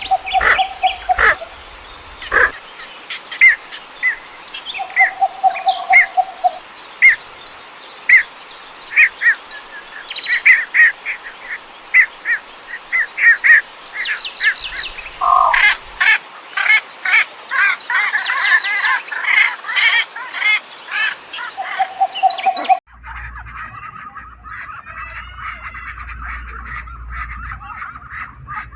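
Birds calling and chirping outdoors: many short, repeated chirps with a few held whistled notes, and a dense stretch of quick sharp calls in the middle. Near the end it cuts to a low rumble with faint, higher calls.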